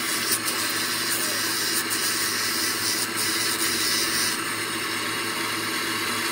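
Small motor-driven grinding wheel running with a steady hum while a steel differential pinion gear is pressed against it, a grinding hiss from the contact: a broken tooth that has been rebuilt by welding is being ground back to shape. The grinding eases about four seconds in as the gear is lifted off the wheel.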